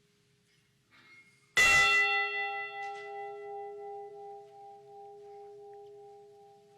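A large bell struck once, about a second and a half in. It rings on with several steady tones that slowly fade, the higher ones dying away first. This is a memorial toll, one stroke for each of the 29 men lost on the Edmund Fitzgerald.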